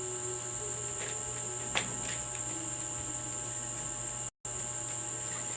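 A steady high-pitched whine or trill over a low hum, with a few light ticks.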